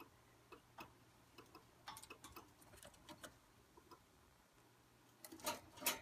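Faint, irregular clicks and taps of an Indian ringneck parakeet shifting about on its perch and toys in a wire cage, with a louder cluster of clicks near the end.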